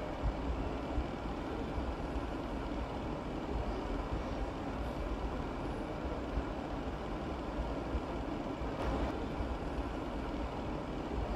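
Steady low rumbling background noise, machine-like, with no distinct knocks or strokes.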